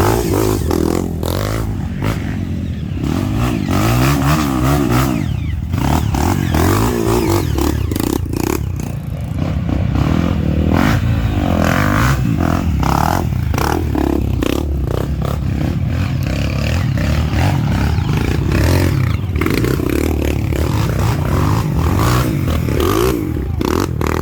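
Off-road trail motorcycle engine revving up and down over and over, with clattering and scraping on top, as the bike struggles to get up an obstacle.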